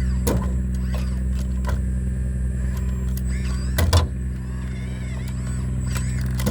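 Sumitomo SH120A3 excavator's diesel engine running steadily, with a few sharp metallic knocks from the machine at work, the loudest just under four seconds in.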